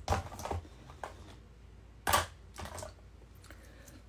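A handful of light clicks and knocks of small objects being handled and set down, the loudest about two seconds in.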